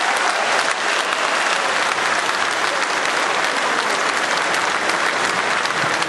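Large crowd applauding, a dense, steady clapping that holds at the same level throughout.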